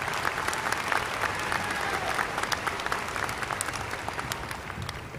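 A large audience applauding, many hands clapping at once, the applause slowly dying down toward the end.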